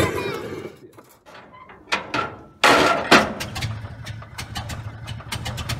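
A few sharp knocks and a short loud rush of noise, then, from a bit past halfway, an old truck engine running with a low steady hum and rapid ticking after being hand-cranked.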